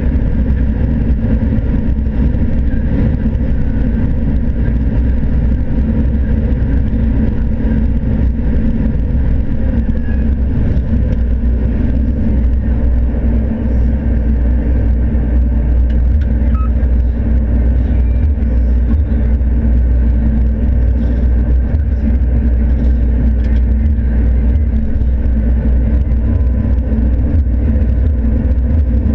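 John Deere combine harvester running steadily in the corn, a loud, even, low mechanical drone that holds without change.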